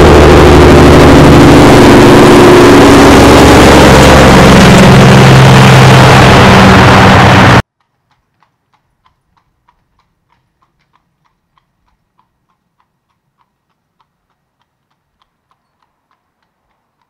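Heavy truck diesel engine running very loud and close, cutting off suddenly about seven and a half seconds in. Faint, evenly spaced ticking follows, about two to three a second.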